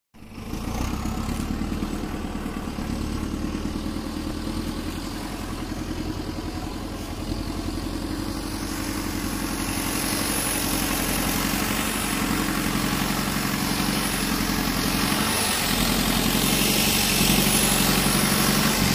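Heavy farm diesel engine running steadily close by. From about ten seconds in it grows a little louder, with more hiss on top.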